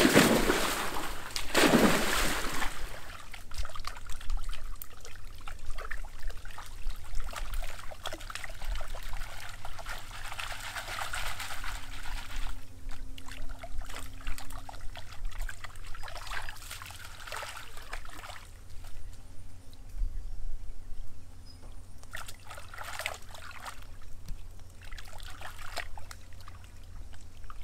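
Water splashing as someone wades quickly into a muddy pond. Then intermittent sloshing and trickling as a plucked chicken and leafy vegetables in a woven basket are swished and rinsed by hand in the water.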